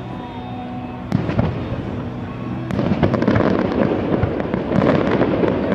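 Aerial fireworks bursting: a sharp bang about a second in, then a dense run of crackling pops and booms from about halfway on.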